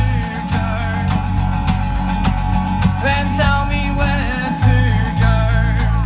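Live song: a man singing over guitar accompaniment, with a heavy, sustained bass line underneath.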